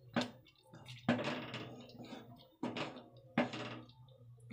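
A wooden spatula stirs thick sabudana kheer in a nonstick pan, in four separate strokes that scrape through the pan, over a faint low hum.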